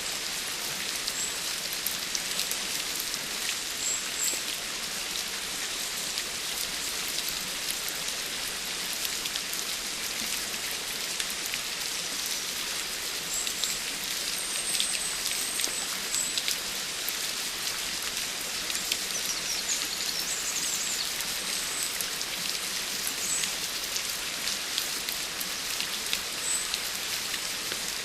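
Steady rain: an even hiss with many individual drops ticking, and a few faint short high chirps here and there.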